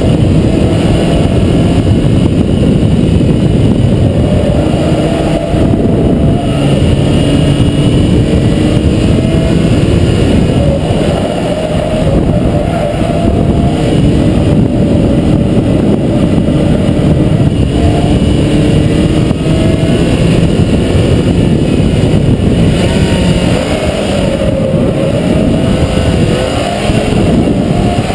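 Mazda MX-5 NB's 1.8-litre four-cylinder engine heard onboard at racing speed, pulling hard and rising in pitch several times as the car accelerates through the gears, with a loud rush of road and wind noise underneath.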